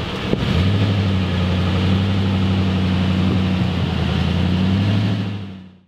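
A motor running with a steady low hum while the boat is hauled out onto its trailer at the ramp. A click comes about a third of a second in, and the hum steps up slightly just after it. It fades away at the very end.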